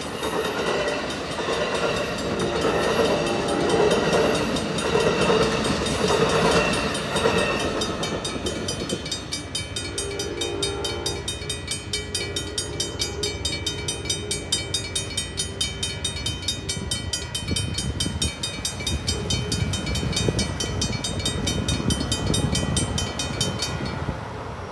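Amtrak Superliner passenger cars rolling through a grade crossing, wheels clattering on the rails, over the crossing's mechanical bells. After the train clears, about eight seconds in, the two mechanical signal bells (a first-generation Safetran and a WRRS) go on ringing in rapid, even strokes. They stop shortly before the end as the gates rise.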